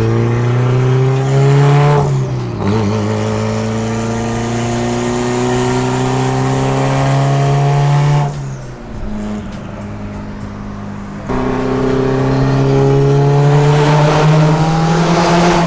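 Mitsubishi Lancer Evolution VIII's big-turbo 4G63 four-cylinder engine under hard acceleration. Revs climb, dip at a gear change about two seconds in, and climb again. About eight seconds in the driver lifts off, and the engine drops to a quieter, lower note for a few seconds. It then comes back on throttle, and the revs climb until near the end.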